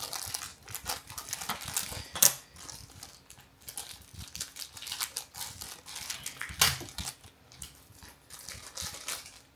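Plastic packaging film crinkling and rustling as it is peeled off small acrylic figure stands, in irregular crackles, with a louder snap a little after two seconds in and a knock near seven seconds.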